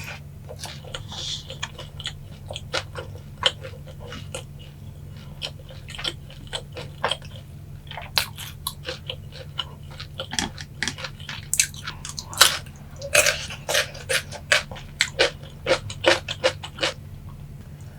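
Close-miked chewing of crispy boneless yangnyeom fried chicken: wet crunches and mouth clicks, busier and louder in the second half, over a faint steady low hum.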